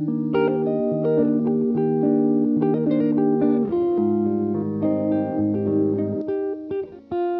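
Background music: a melody of plucked notes over lower held notes.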